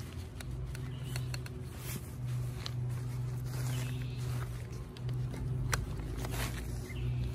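Tent poles being fitted into the tent's plastic hubs: scattered clicks, with scraping and rustling of the tent fabric, over a steady low hum.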